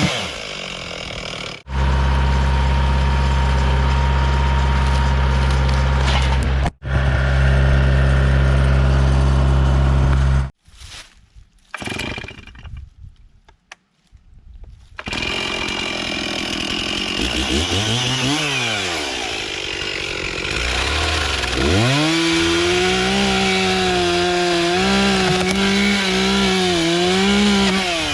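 Chainsaw revving up and down, then running at high speed under load as it cuts through a log. Before that, after a short near-quiet gap, a steady low engine runs for several seconds.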